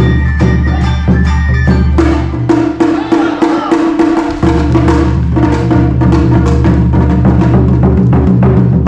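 Awa Odori dance music played live: drums and rapid wooden percussive strikes over a sustained melody, with a steady beat throughout.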